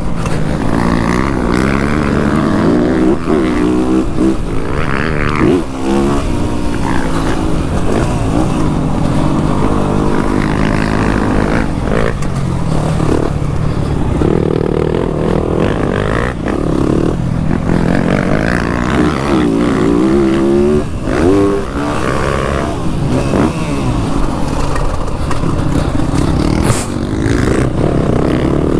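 Motocross bike engine revving up and falling off again and again as the rider accelerates and shuts off around the track, with wind rushing on the microphone and a few knocks from the bike.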